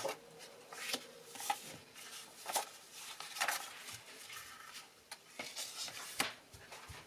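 Cardstock and paper sheets rustling and sliding as they are picked up and handled, in a string of short, irregular strokes with a few light taps.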